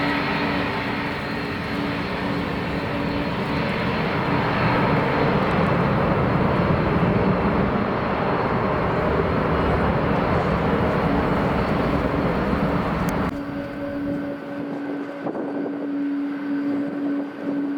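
Jet airliner's engines running, heard under heavy wind buffeting on the microphone. The low wind rumble drops away suddenly near the end, leaving a steady engine whine.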